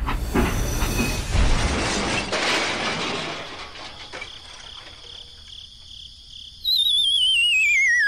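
Rumble and clatter of a train that fades out over the first four seconds. About seven seconds in, a loud warbling whistle starts and slides steadily down in pitch.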